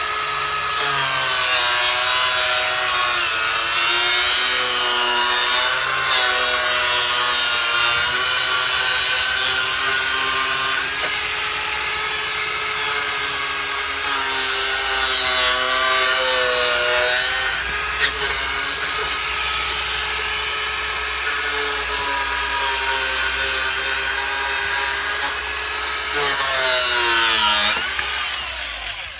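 Angle grinder cutting through a black plastic valve box: a steady motor whine whose pitch dips and recovers each time the disc bites into the plastic, then winds down near the end.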